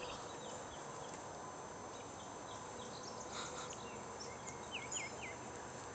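Several songbirds chirping, with a Baltimore oriole's quick run of four whistled notes about five seconds in.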